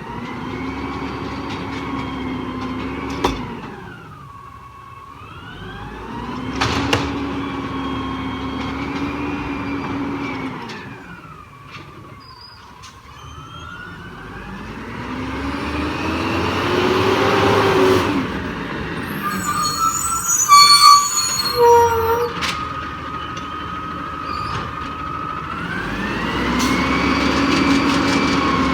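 Peterbilt 320 garbage truck's diesel engine repeatedly revving up, holding a higher speed for a few seconds, then dropping back to idle, as it powers the hydraulics of the Amrep body. A short clatter of metallic clanks comes about two-thirds of the way through.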